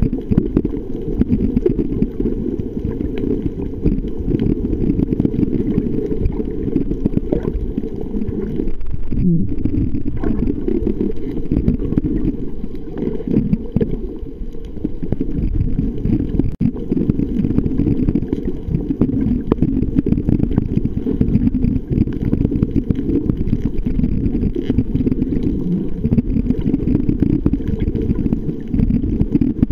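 Muffled underwater rumble of moving water against a submerged camera housing, a steady low noise with almost nothing above it.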